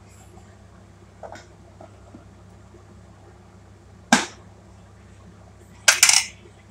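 Sharp knocks of kitchen work: a faint click about a second in, a loud knock around four seconds, and a quick double knock near the end, over a steady low hum.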